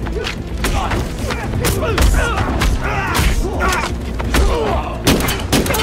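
Movie fight sound effects: a run of punches and body-blow thuds mixed with grunts and shouts, over a steady low rumble, with a quick cluster of sharp hits near the end.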